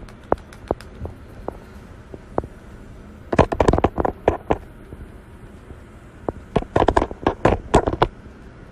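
Sharp clicks and taps of hands handling a phone close to its microphone, scattered at first and then in two quick clusters, about three and a half and seven seconds in, over a low hiss.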